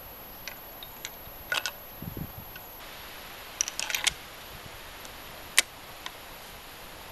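Scattered sharp clicks and clatter from a Savage Model 10 bolt-action rifle being handled between shots, with a cluster of clicks around four seconds in and the loudest single click about five and a half seconds in.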